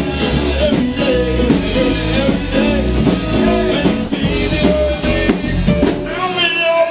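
A live blues-rock band playing: a lead singer over electric and acoustic guitars and a drum kit keeping a steady beat.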